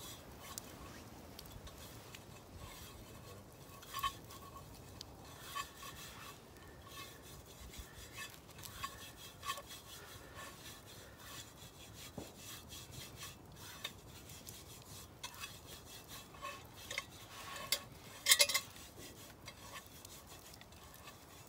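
Hands wiping and rubbing around the inside of a cast-iron Dutch oven, with scattered scrapes and light metallic clinks. There is a louder clatter of metal about three-quarters of the way through.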